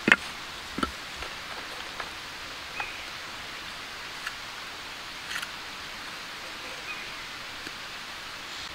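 Sharp knocks of a small hand tool striking flat stone, the loudest just after the start and then several softer taps about a second apart, over a steady outdoor hiss.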